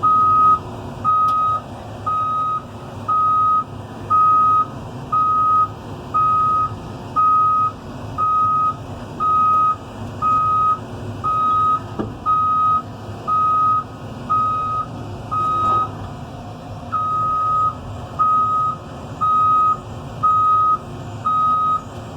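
CAT 320 excavator's travel alarm beeping about once a second while the machine tracks, over the steady running of its diesel engine. The beeping stops for about a second roughly three-quarters of the way through, then resumes.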